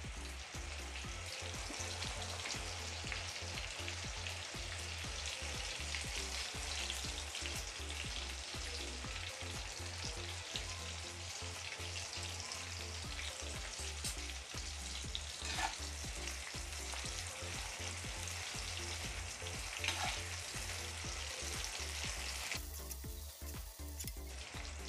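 Sliced onions, lightly coated in cornflour, sizzling and crackling steadily as they deep-fry in hot oil in a steel kadhai on full gas, with a few sharper pops; the crackle briefly drops out near the end.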